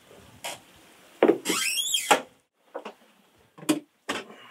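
Hands working at a dock shore-power pedestal and its cord: a few clicks, a loud clattering scrape with a squeal about a second in, then several separate knocks.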